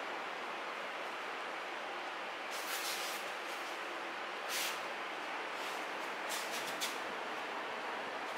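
Steady background hiss, with several short swishes starting a few seconds in: bare feet sliding on practice mats and cotton practice uniforms rustling as two aikido partners stand up from a bow and move into a throw.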